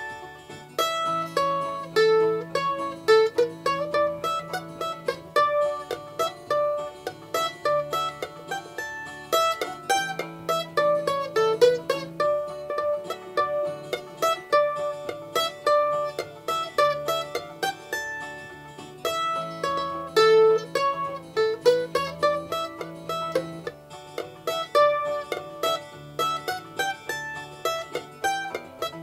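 Sunburst F-style mandolin picked solo at a brisk pace, running through a fast fiddle tune note by note. It is played by a beginner, with some rough spots.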